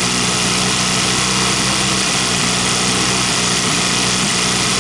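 Johnson/Evinrude two-stroke outboard motor running at raised fast-idle revs while its carburettor mixture needle is screwed in, leaning the mixture to the edge of the point where the engine starts to sneeze (misfire).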